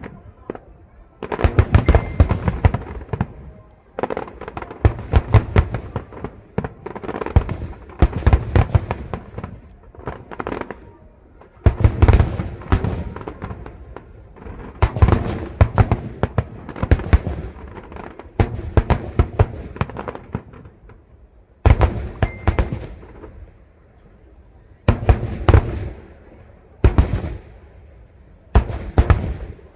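Aerial fireworks display: rapid clusters of loud bangs and crackling, salvo after salvo about every one to two seconds, each bang ringing out briefly, with short lulls in between.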